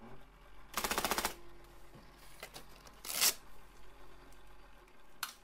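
Printing calculator's EP-102 printer mechanism rattling in one quick burst of rapid clicks about a second in, followed a couple of seconds later by a shorter noisy burst and a single click near the end.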